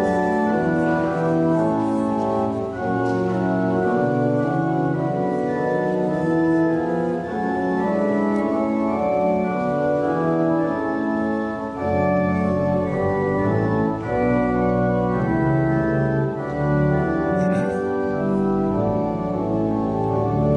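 Church organ playing a slow piece in sustained, held chords, with deeper bass notes joining about twelve seconds in.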